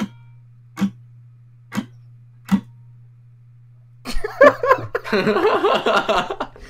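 A clock ticking about once a second over a steady low hum. About four seconds in, a sudden loud, rough yell breaks in, a startling shout that cuts through the quiet.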